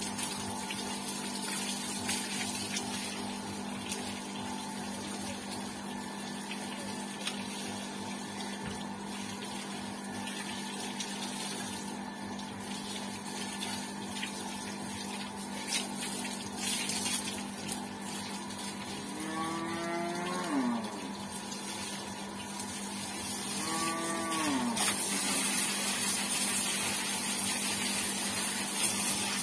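Water running from a garden hose and splashing onto a motorcycle and the wet paving, over a steady electric water-pump hum. Two drawn-out calls, each rising then falling in pitch, come about twenty and twenty-four seconds in. The hose spray grows louder and hissier over the last few seconds.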